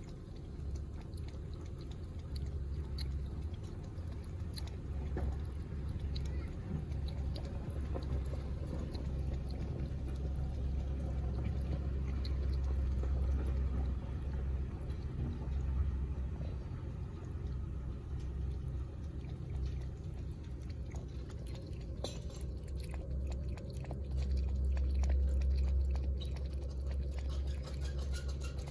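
A kitten lapping water from a plastic bucket: a rapid run of small wet clicks, thickest near the end, over a steady low rumble.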